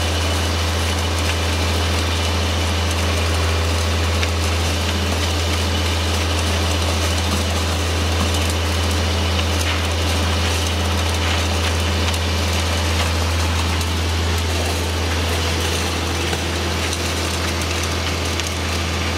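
Heavy diesel engine of a concrete pump truck running steadily with a constant low hum.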